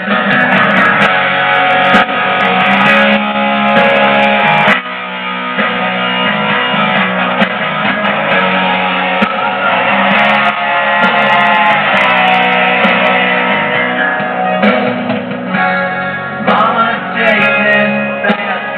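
Guitar music with some singing, played from a CD on the Toyota Avensis car radio's six-disc changer.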